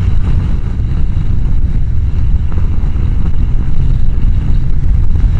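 Wind rushing over a motorcycle helmet's microphone at road speed, with rain hitting the helmet and the Honda CBR1000F's engine running underneath.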